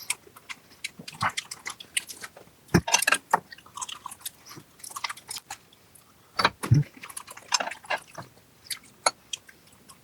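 Close-miked chewing and wet mouth sounds of someone eating raw yellowtail sashimi, with irregular small clicks and a couple of louder knocks.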